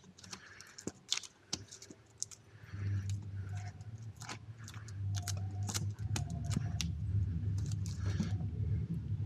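Vinyl LP sleeves clicking and knocking against each other as they are flipped through by hand in a plastic crate. A low rumble comes up about three seconds in and grows louder about six seconds in.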